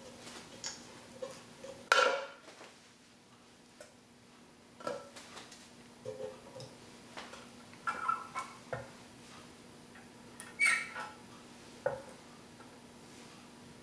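Badminton racket string being woven through the main strings and pulled through the frame's grommets: scattered light clicks, taps and rattles, with two louder short swishes of string drawn through, about 2 s in and near 11 s.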